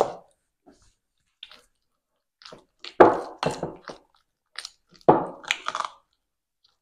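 Metal spoon stirring a thick, wet mixture of blended cottage cheese, condensed milk and sour cream in a glass bowl: squelching strokes in irregular bursts, the longest runs about three and five seconds in.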